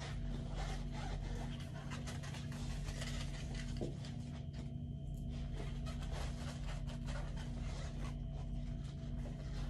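Steady low hum, with faint scattered rustles and small squeaks from latex balloons being handled.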